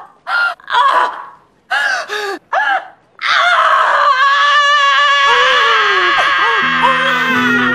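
Woman screaming in the last moments of childbirth: short cries and gasps, then one long, high-pitched scream from about three seconds in. Low, steady music tones come in underneath near the end.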